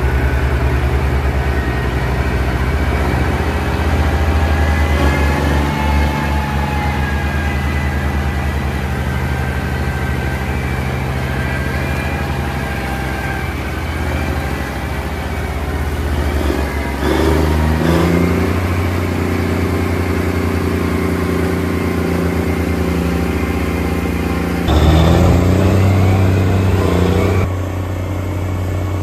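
Big Bud 525/50 four-wheel-drive tractor's big diesel engine running steadily while pulling an 18-bottom moldboard plow, a deep even drone. Its pitch climbs briefly about two-thirds of the way through, and again near the end, where it is loudest for a few seconds.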